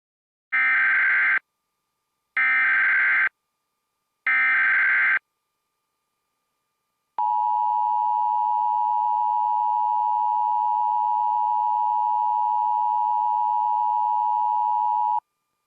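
Emergency Alert System tones: three short bursts of SAME digital header data, each about a second long. After a gap of about two seconds comes the steady two-tone EAS attention signal, held for about eight seconds and then cut off abruptly.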